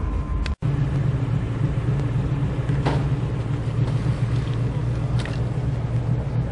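Old Toyota 40 Series Landcruiser's engine running with a steady low drone on a steep, loose dirt track. The sound drops out for an instant about half a second in.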